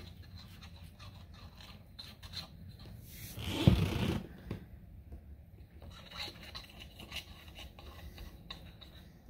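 Small brush scratching and scraping as anti-seize is daubed into the bolt holes of a steel lower control arm, with a louder burst of handling noise about three and a half seconds in as the brush goes back to the brush-top can.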